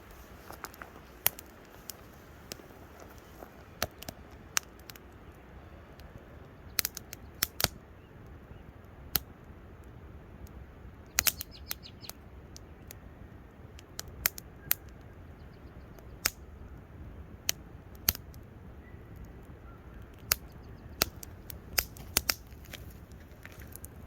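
Campfire crackling: irregular sharp pops and snaps at uneven spacing over a low steady background.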